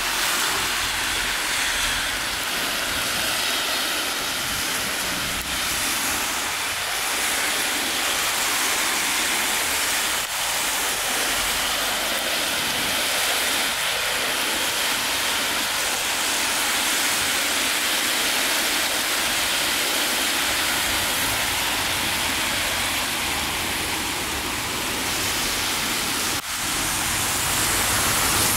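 Steady hiss of rain falling and of traffic on a wet road, with no rhythm or distinct events.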